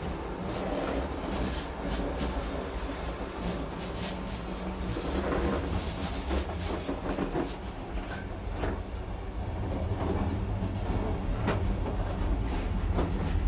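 Moving train heard from the gangway between two wagons: a constant low rumble of the running gear with irregular rattles, clacks and creaks from the coupling and gangway. The rattling gets denser and louder toward the end.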